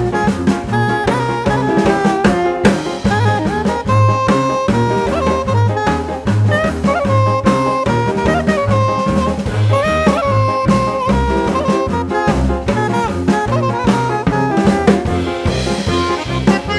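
Instrumental jazz-style background music: a horn melody over a walking bass and a drum kit keeping a steady beat.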